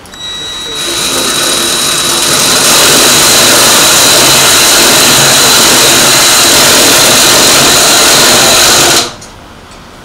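Electric drill running under load as it bores a hole in a metal workpiece, with a steady high whine. It stops briefly, starts again about a second in, builds to full speed, then cuts off sharply near the end.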